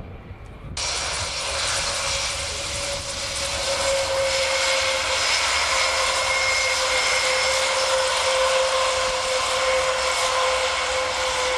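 Airbus A400M Atlas's four Europrop TP400-D6 turboprops running loud and close: a steady propeller drone with a held hum over a rushing roar, which jumps sharply louder about a second in.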